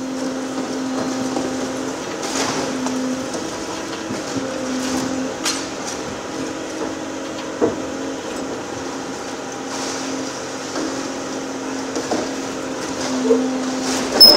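Volvo EC750E high-reach demolition excavator working, its engine and hydraulics giving a steady hum that swells and eases as the boom moves. Scattered cracks of breaking brickwork and falling debris, with a sharp knock near the end.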